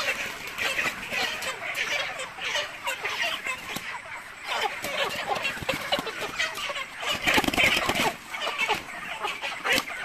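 Broiler chickens squawking and clucking in an overlapping chorus as they are caught and packed into wire-mesh crates, with scattered knocks and clicks. The squawking grows louder for a moment about seven seconds in.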